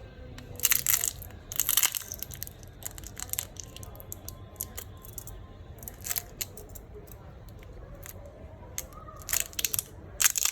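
Prying a Huawei Nova 7i's battery off its adhesive with a plastic tool: irregular crackling and scraping, loudest about a second in, about two seconds in and again near the end.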